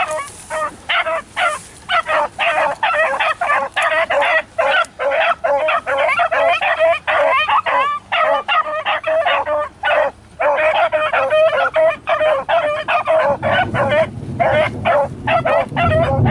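A pack of beagles baying as they run a rabbit, many short overlapping cries coming about three a second without a break: hounds giving tongue on a hot scent trail. A low rumble joins in near the end.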